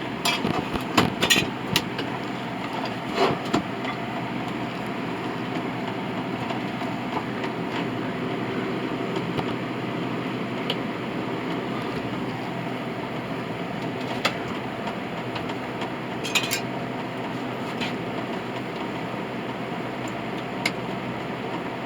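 A few sharp metallic clinks of scrap brass pieces being handled in the first few seconds, then a steady mechanical hum with an occasional light clink.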